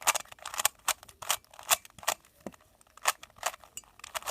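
Fisher cube, a shape-shifting plastic 3x3 twisty puzzle, being turned by hand: an irregular run of sharp plastic clicks, about a dozen, as its layers snap round.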